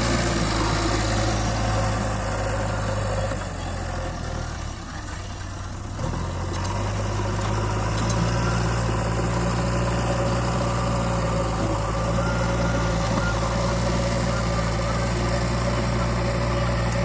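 Heavy diesel machinery engine running with a steady hum. It drops quieter for about two seconds near the middle, then settles back to the same note.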